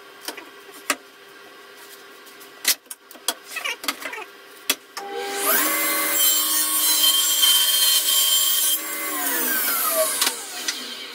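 A few knocks and clicks as a board is set against a table saw's fence. About five seconds in, the table saw's motor starts with a rising whine, the blade cuts through the board for about three seconds, and the motor winds down with a falling whine near the end.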